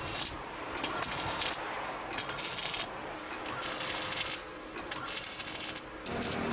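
Electric arc welding on a stainless-steel frame: a run of short tack welds, each a burst of high hiss lasting under a second, about six in all with short pauses between.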